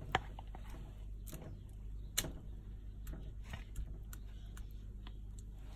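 Scattered light clicks and taps of soap-making containers and utensils being handled while batter is poured into a mould, over a low steady hum.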